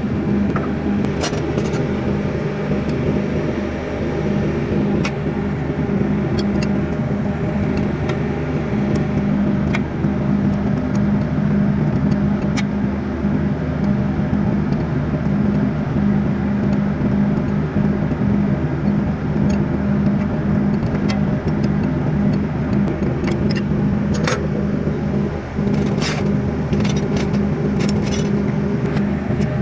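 Steady drone of a running engine, with scattered metallic clicks and taps of hand tools and small engine parts being handled, most of them near the end.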